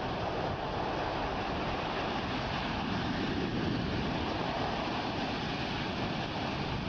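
Sea waves and surf: a steady rushing of water with no single crash standing out.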